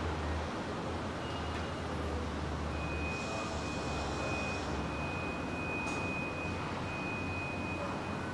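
Car assembly-line factory ambience: a steady low machinery hum and general shop noise. A thin, continuous high electronic tone comes in about two and a half seconds in and holds, with a brief hiss partway through.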